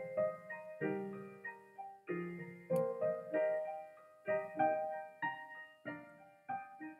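Background piano music: soft chords and melody notes, each struck and fading away.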